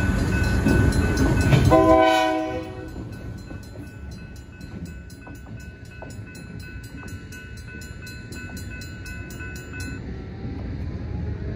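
Genset switcher locomotive rumbling past the crossing and giving a short blast on its K3HA horn about two seconds in, after which the train sound falls away. The crossing bells, a GS Type 3 electronic bell and a Safetran mechanical bell, ring in regular strokes until they stop about ten seconds in.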